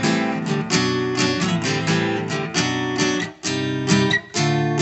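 Acoustic guitar strummed in a steady rhythm as an instrumental passage between sung lines, cutting out briefly twice in the second half.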